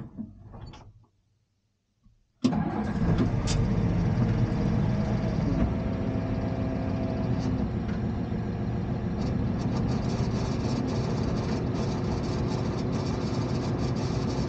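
Allis-Chalmers 8030 tractor's diesel engine comes on suddenly about two seconds in, then runs steadily at low revs.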